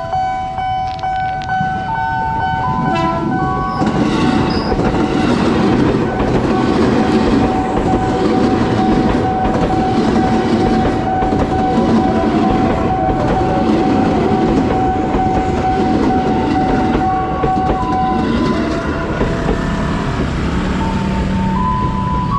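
Electric commuter train (KRL Commuterline) passing close by, its wheels clattering over the rails in a loud, steady rush from about four seconds in. A steady high tone sounds over it until near the end, with a few stepping tones at the start and again at the end.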